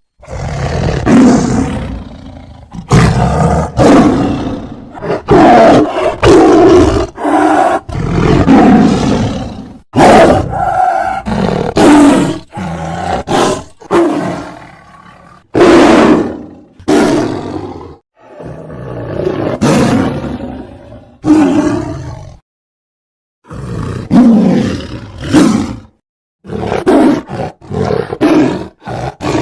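Big cat roars, a long series of separate loud calls spliced one after another with abrupt starts and stops and a couple of brief silent gaps.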